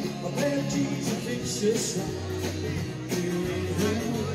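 Music with a steady beat and a moving bass line.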